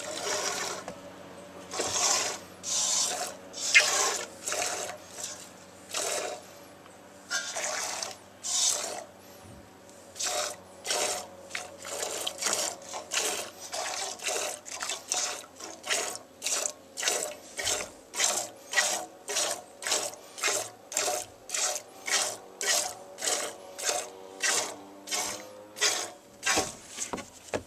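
Streams of goat's milk squirting from the teats into a container during hand milking. The squirts come irregularly at first, then settle into a steady rhythm of about two a second.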